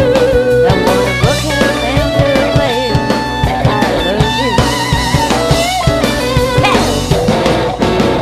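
Live rock band playing, an electric guitar line with bends and vibrato over drum kit and bass.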